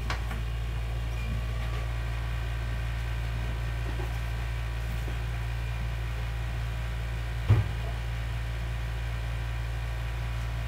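Steady low hum, with one brief thump about seven and a half seconds in.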